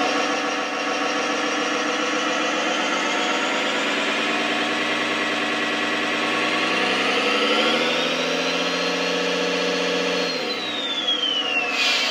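Simulated diesel truck engine from a Chinese RC truck sound module, played through its speaker: the revs climb with a rising turbo whine that holds high, then the revs drop about ten seconds in and the turbo whistle winds down. A short hiss comes near the end.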